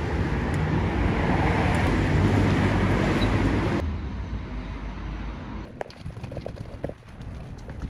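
Steady rumble of a moving vehicle that cuts off abruptly a little before halfway through, giving way to a quieter background with scattered clicks.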